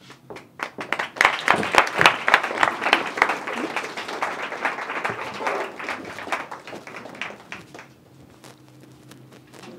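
Audience applauding. The applause swells up about half a second in, is loudest in the first few seconds, and dies away near the end.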